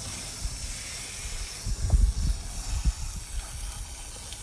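Pressurised hose water hissing steadily through a tank rinser wand as it sprays inside an RV water heater tank, with a few low bumps about two seconds in.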